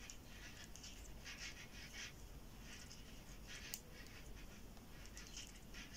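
Faint scratching of yarn over metal knitting needles as knit stitches are worked, soft strokes about once or twice a second, with one sharp needle click a little past the middle.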